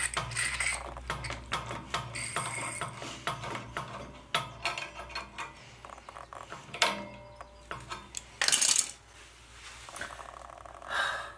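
Pliers clicking and scraping on a leaking brass radiator drain cock as it is worked: a quick run of sharp metallic clicks that thins out, then two short, loud hissy bursts later on.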